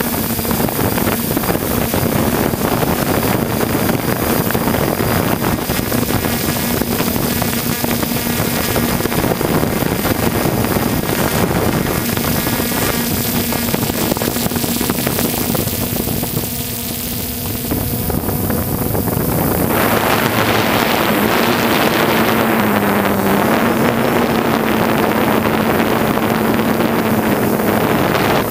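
3DR Solo quadcopter's four electric motors and propellers humming steadily in flight, heard from the GoPro on the drone itself, over a constant rush of air. The hum's pitch dips briefly a little past two-thirds in, and the hiss grows louder from about two-thirds in.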